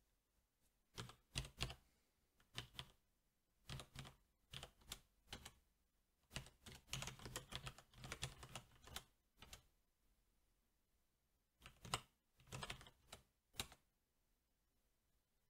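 Typing on a SteelSeries 6Gv2 mechanical keyboard with Cherry MX Black switches: scattered keystrokes, then a fast run of them in the middle, a pause, and a last short burst of keystrokes.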